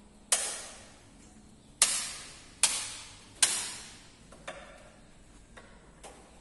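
Four sharp knocks, the first about a third of a second in and the rest roughly a second apart, each dying away in a short echo, with a few faint clicks after them.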